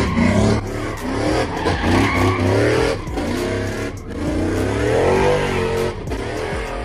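Pickup truck engine revving up and down again and again while the truck spins donuts, its rear tyres spinning and skidding on the pavement.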